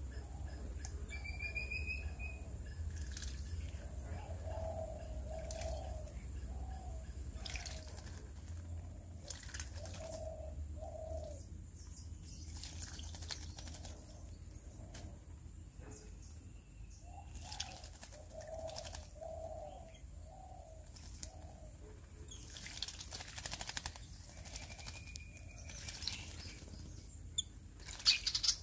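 Common myna bathing in a bird bath: short, sudden splashes as it flicks water with its wings, coming in bouts and most frequent near the end. Behind it, a low bird call repeats in short phrases of two to four notes, with a few higher chirps.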